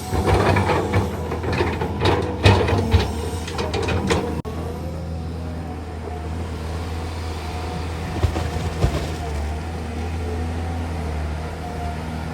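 Heavy diesel engine running steadily, with a burst of metallic clanking and knocking over the first four seconds and two sharp knocks later on.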